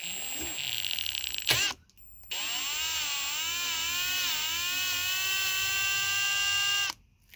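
Electric drill turning a left-hand cobalt drill bit into the broken bleed screw of a brake caliper, to pull out the remaining piece. The motor whines in two runs with a sharp click and a short stop about a second and a half in. In the second run the pitch wavers as the bit bites, then holds steady before the drill stops near the end.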